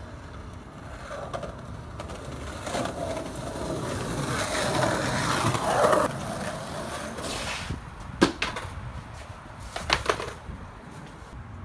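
Skateboard wheels rolling on a concrete sidewalk, the rolling growing louder to a peak about six seconds in and then fading, followed by a few sharp clacks of the board near the end.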